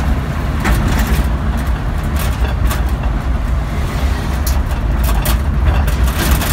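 A 1946 Ford truck on a 2000 Mercury Mountaineer chassis driving slowly, heard from inside the cab: a steady low engine and road rumble with scattered light clicks and rattles.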